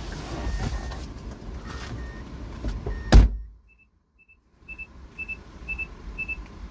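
Car cabin sound of a Mazda MX-5 standing at idle: a low rumble with scattered clicks. There is one loud thump about three seconds in, then a second of near silence, then a run of quick paired electronic beeps about twice a second.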